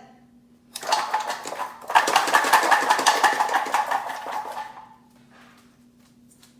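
Garlic cloves rattling hard against the walls of a plastic container for about four seconds, a dense run of rapid clicks with a brief break about a second in. The shaking knocks the papery skins off the cloves.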